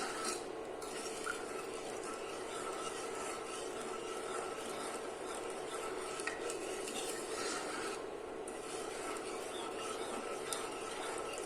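Sugar and water being stirred in a pot over low heat. It makes a steady, grainy scraping, the sound of sugar crystals that have not yet dissolved rubbing on the bottom of the pot, with a few light clicks.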